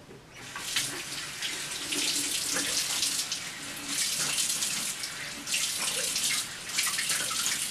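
Water running from a bathroom sink tap and splashing as the face is rinsed of cleansing foam. It starts about half a second in, and the splashing rises and falls unevenly.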